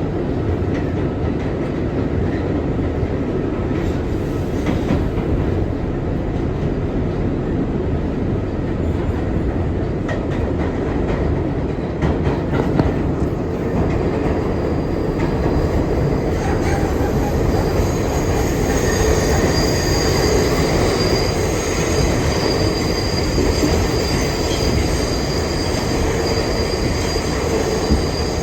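R62 subway train running along the track: a steady, loud rumble with an occasional clack from the rails. About two-thirds of the way through, a high-pitched wheel squeal sets in and holds to the end.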